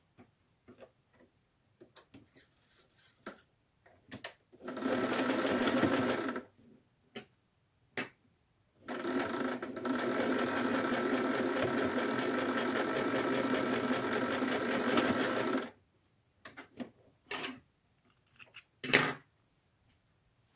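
Electric household sewing machine stitching cotton patchwork pieces at a steady speed. It runs in two spells, a short one of about two seconds and then a longer one of about seven. Small clicks and fabric rustles from handling the pieces come between and after the runs, with a brief louder rustle near the end.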